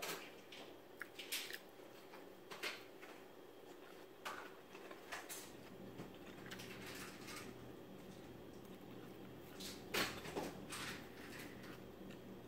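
Eating a crisp salad of lettuce, apple and chicken: scattered crunching and chewing with light clicks of a metal fork against the ceramic bowl, the loudest crunch about ten seconds in. A faint steady hum runs underneath.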